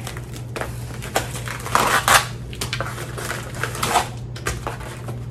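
Plastic film being torn and peeled off a foam tray of raw chicken breasts, crinkling and crackling in irregular bursts, loudest about two seconds in.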